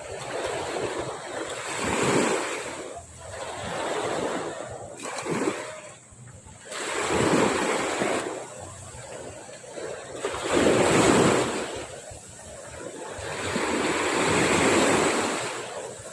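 Sea waves washing onto a beach, the surf swelling and falling back about five times, every two to four seconds.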